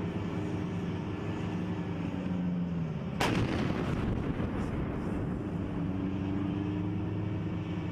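An M109A6 Paladin 155 mm self-propelled howitzer fires once, about three seconds in: a single sharp blast that rings on for about a second. Under it an engine runs steadily.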